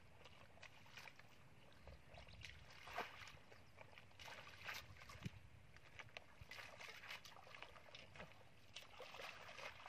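Faint, irregular squelches and small splashes of feet wading through soft mud and shallow water, the loudest about three seconds in.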